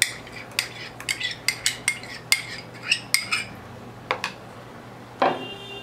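A metal spoon scraping and knocking against a glass blender jar and a plastic bowl as blended avocado is scooped out. There is a quick run of clinks and scrapes, then a pause with a couple more knocks and a short final scrape near the end.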